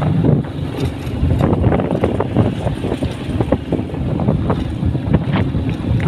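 Wind buffeting the microphone: a loud, irregular low rumble with rapid gusty thumps.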